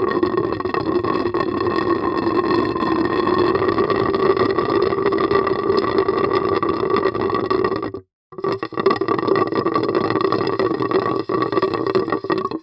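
Water gurgling and bubbling continuously with a steady hum-like tone. It breaks off for a moment about eight seconds in, then starts again as a second take.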